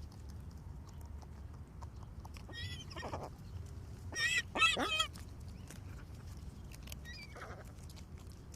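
Seagulls calling: a few separate cries, the loudest a close pair about four to five seconds in and a fainter one near the end, over a low steady background rumble.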